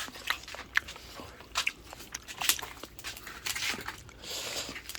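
Scattered short clicks and crunches of people eating grilled oysters: shells knocking and being pried open, with chewing.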